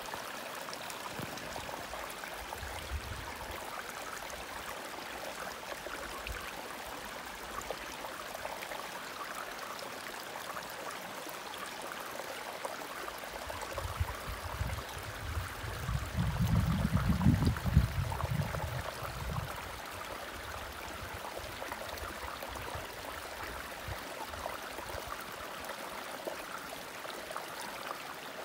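Small rocky woodland creek trickling and gurgling over stones, a steady water sound. About halfway through, a low rumble swells for a few seconds, then dies away.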